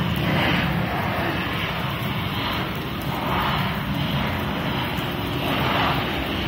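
Heavy rain pouring down onto a paved driveway and street: a steady, loud rushing hiss that swells and eases a little every second or two.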